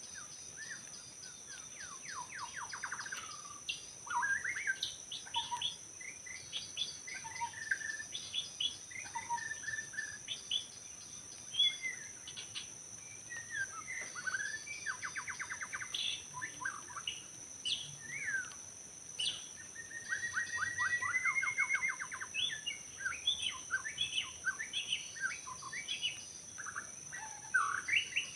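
White-rumped shama (murai batu) singing a varied song of short whistled phrases and fast trills, one long trill rising then levelling off about two-thirds of the way in. A steady high-pitched drone runs behind it.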